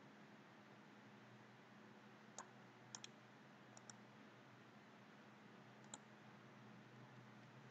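Six faint, sharp computer mouse clicks, two of them in quick pairs, heard over a steady low hum and hiss.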